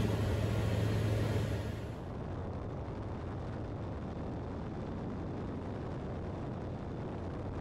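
Light airplane's Rotax engine and propeller running steadily in cruise flight, a continuous drone, which drops in level and turns duller about two seconds in.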